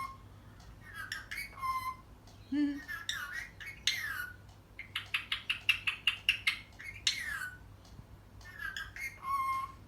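Pet parrot chattering and squawking: gliding whistled calls, a rapid run of about seven clicks a second from about five seconds in, and a short steady whistle near the end.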